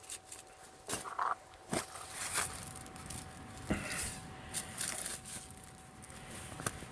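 Digging in rooty soil with a hand digging tool: scattered sharp knocks and scrapes as the blade strikes and cuts through dirt and roots, over a faint steady tone.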